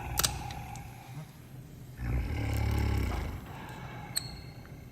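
Sedated Syrian brown bear snoring: one long, deep snore starting about two seconds in and lasting over a second. There is a sharp click just after the start and another near the end.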